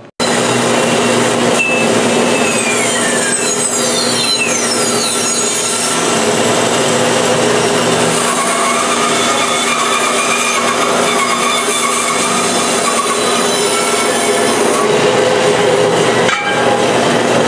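Band saw cutting metal: a steady, loud rasping grind with shrill squeals that slide down in pitch a few seconds in.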